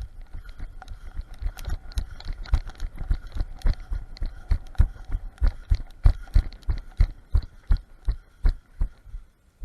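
Rhythmic low thumps, about three a second, each with a light rattle on top: hurried footfalls of someone moving quickly, picked up by a camera worn on the body.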